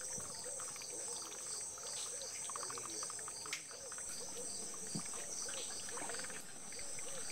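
Mangrove swamp insects trilling in a steady high-pitched chorus, with a lower call repeating about twice a second. There is one sharp knock about three and a half seconds in.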